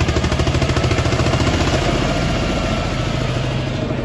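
Diesel tractor engines running hard under full load in a tractor tug-of-war, with a rapid, even chugging.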